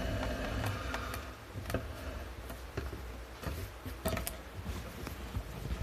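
Handling noise from a camera being moved and set down: a low rumble with scattered light clicks and taps at uneven intervals.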